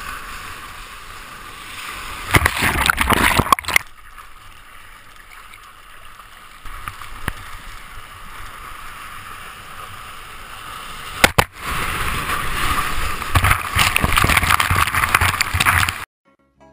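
Seawater sloshing and splashing right at a board-mounted camera as a rider paddles a bodyboard, with two loud rushes of water, about two seconds in and from about eleven seconds in, the second one as the board runs through whitewater. A sharp knock comes just before the second rush, and the sound cuts off suddenly near the end.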